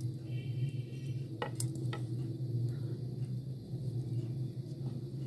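A few light clicks of wooden skewers knocking against a pan as skewers of chicken tikka are laid in it, about three in the first two seconds, over a steady low hum.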